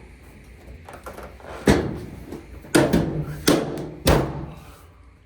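Four sharp knocks on the clothes dryer, each dying away over about half a second.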